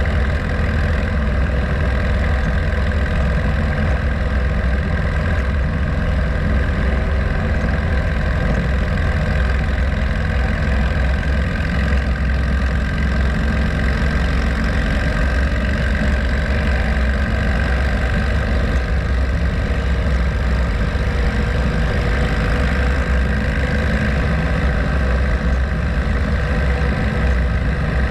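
Harley-Davidson Road Glide's V-twin engine running steadily while cruising on the road, a constant low rumble mixed with wind and tyre noise, unchanging throughout.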